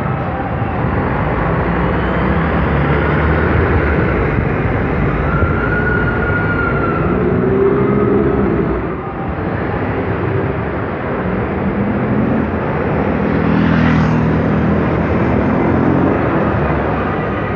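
City buses driving past close by, engines running and tyres on the road, over steady street traffic. An engine swells as a bus goes by about halfway through, and again near the end.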